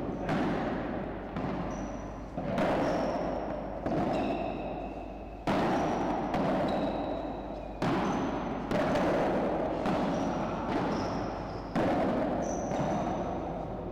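Padel rally: the ball struck by solid paddle rackets and bouncing off the court and walls, sharp hits about once a second, each ringing out with a long echo and a brief high ping.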